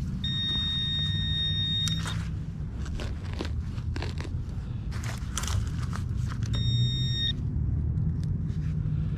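A handheld metal-detecting pinpointer sounding a steady high beep for about two seconds, signalling a metal target in the ground. Crackling and scraping of digging through grass, soil and dry leaves follow, and the pinpointer beeps again briefly about seven seconds in.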